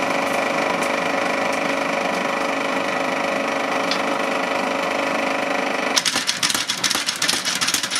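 Steady motor hum from the blacksmith's homemade power hammer setup, then about six seconds in a rapid series of mechanical power-hammer blows on red-hot steel.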